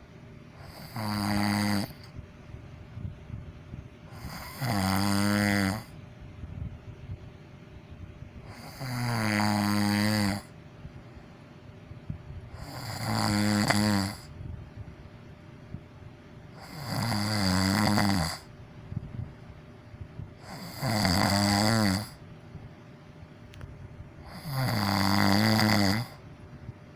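A person snoring in a slow, even rhythm: seven long snores, about one every four seconds, each with a low, wavering pitch. Between them there is only quiet breathing.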